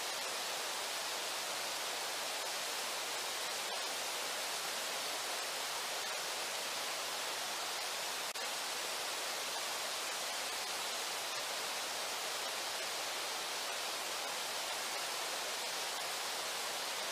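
River water rushing: a steady, even hiss that does not change.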